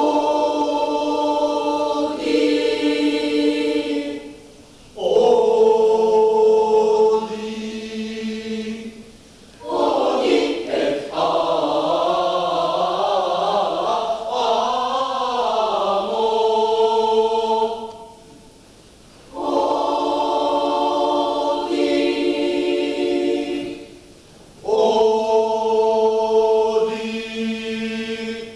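Mixed-voice school choir singing in phrases of held chords, each a few seconds long, broken by short pauses. A longer phrase in the middle has wavering, moving lines.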